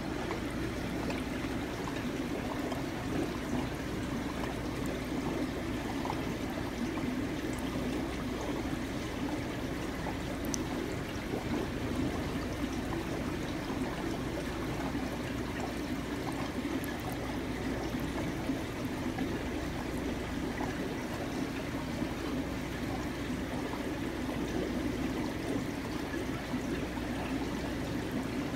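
Steady running, trickling water, with a low hum underneath.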